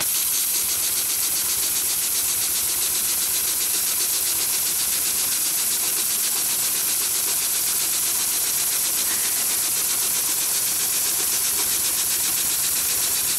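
Heavy-duty long-arm triple-feed sewing machine with a puller feed stitching thick webbing at a steady speed: a fast, even run of stitch strokes over a constant hiss.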